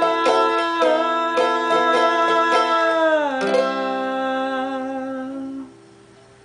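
Mandolin strummed rapidly under a long held sung note that slides down in pitch about three seconds in; a last chord is then strummed and rings out, fading away as the song ends.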